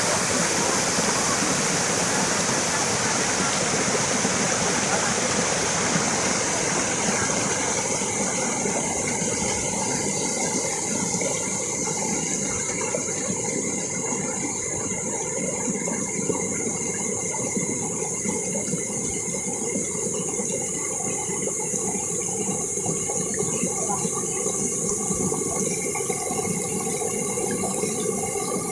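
Waterfall water rushing steadily. About a quarter of the way in the rush thins, and faint steady tones can be heard beneath it.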